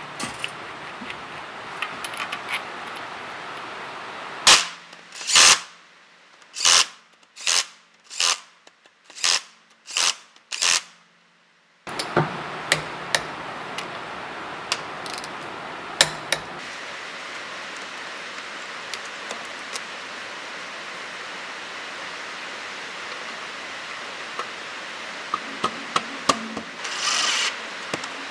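Cordless impact wrench firing in eight short bursts, tightening the flywheel bolts, then scattered clicks of hand tools. Near the end come two short runs of a cordless impact driver on the clutch pressure plate bolts.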